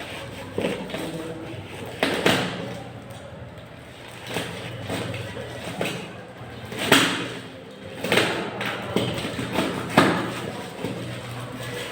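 Handling noises from unpacking a welding cable and electrode holder: a series of separate thumps and knocks every second or two, over a low steady hum.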